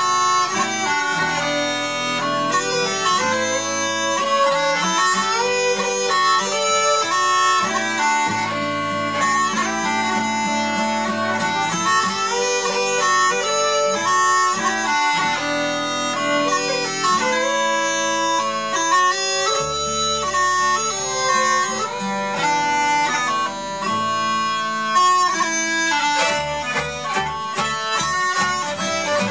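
A folk group playing a Scottish traditional tune together on pipes, fiddle, double bass and guitar, with the pipes leading.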